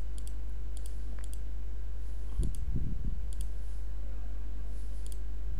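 A computer mouse clicking several times at irregular spacing as slides are clicked through, over a steady low electrical hum. A few dull low thumps come about two and a half seconds in.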